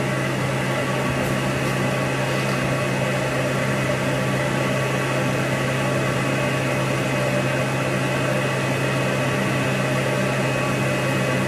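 Steady mechanical hum of a running motor, a low drone with hiss over it, unchanging throughout.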